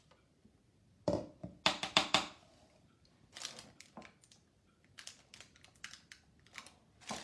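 A spoon scraping a metal mixing bowl and spreading a soft whipped filling over a cookie crust, with parchment paper crinkling under the hand. A cluster of sharp scrapes and clicks comes a little over a second in, followed by lighter, scattered scrapes and rustles.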